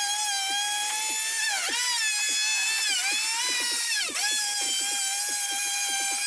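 Handheld electric router running at high speed, its bit cutting the panel profile of a solid wood door. The steady high whine sags briefly in pitch three times as the bit takes a heavier bite.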